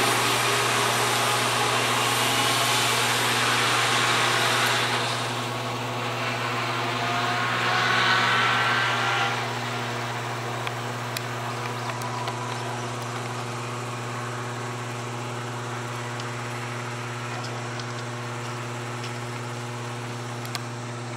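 Amtrak Superliner passenger cars rolling away on the rails. The wheel and rail noise fades about five seconds in, swells again with a thin squeal about eight seconds in, then gives way to a steady low hum.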